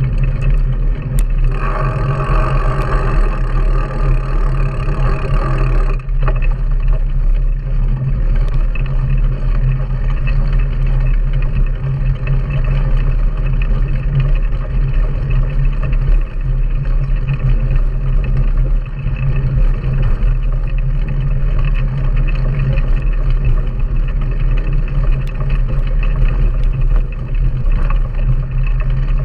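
Wind buffeting the microphone of a low-mounted action camera on a moving mountain bike, a steady low rumble, with the knobby tyres rolling on a sandy dirt track. From about a second and a half in until about six seconds, a higher buzzing layer with a steady pitch sits over it and then stops abruptly.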